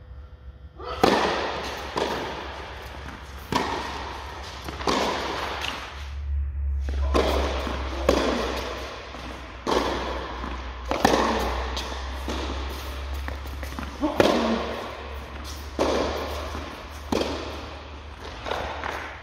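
Tennis rally: strings of a racket striking a tennis ball, with the ball's bounces, about one sharp hit every second and a half, each ringing on with echo in a large indoor court hall. A steady low hum runs underneath.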